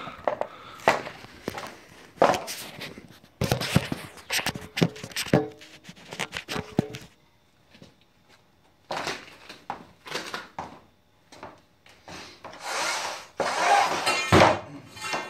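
Handling noise on wood: a clatter of knocks and scrapes over the first seven seconds, then scattered taps, a longer rubbing sound and a sharp thump near the end.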